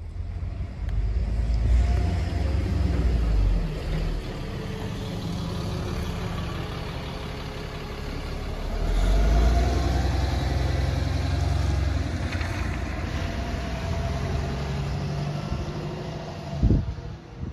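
City bus engine pulling away from the stop and accelerating, swelling in two surges. A single sharp knock comes near the end.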